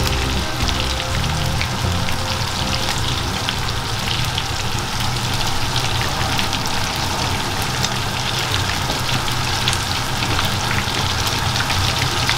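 Chicken deep-frying in hot oil in a black iron karahi: a steady sizzle with many small crackles throughout.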